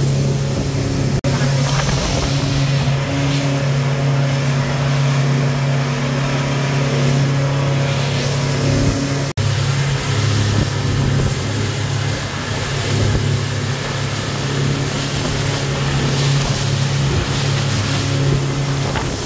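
Speedboat engine running steadily at speed, with a constant rush of water and wind over the boat. The sound drops out very briefly twice.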